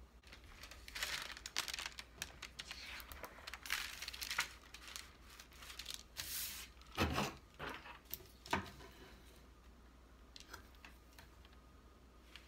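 Paper sheets and transfer paper rustling and crinkling as they are handled and smoothed flat on a wooden sign board, with two soft knocks about seven and eight and a half seconds in. It dies down to faint scratches near the end.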